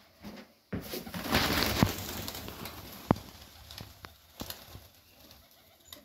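Domestic pigeons in a loft, with cooing around them. About a second in a sudden rush of rustling noise comes up and fades over the next second or two, and sharp clicks follow.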